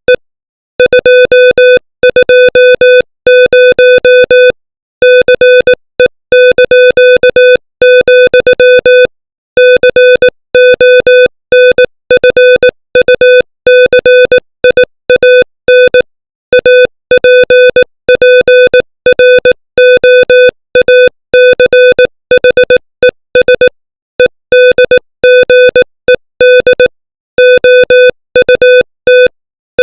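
Morse code sent at 18 words per minute as an electronic tone. A single steady pitch is keyed on and off in dots and dashes, with short silences between characters and longer pauses between words.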